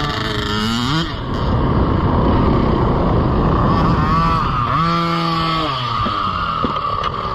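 Dirt bike engines running and revving, the pitch rising and falling. A quick rise comes about a second in, and a rev is held for about a second near the middle, with rushing noise underneath.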